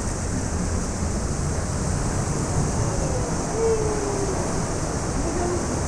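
Steady rush of moving water, with wind buffeting the microphone.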